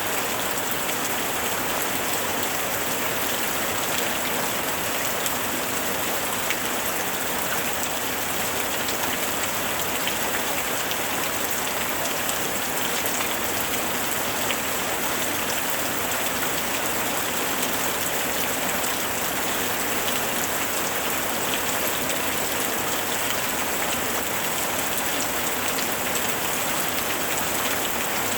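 Steady rain and falling water: an even rushing hiss with faint scattered drop ticks, unchanging in level.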